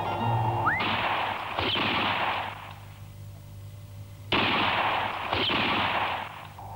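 Gunshots, each with a long echoing tail: one just before a second in and another a few seconds later, each followed by a second crack.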